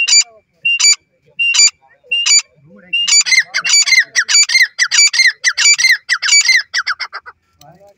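Teetar (francolin) calling loudly: a sharp call repeated about every three-quarters of a second, then from about three seconds in a fast run of short falling notes, about six a second, which stops shortly before the end.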